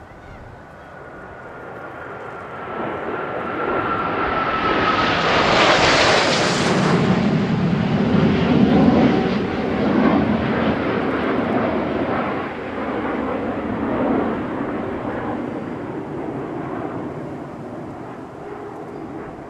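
A formation of Kawasaki T-4 jet trainers, each with twin turbofan engines, passing by: the jet noise builds over several seconds with a whine that falls in pitch and is loudest about six seconds in, then a low rumble that slowly fades.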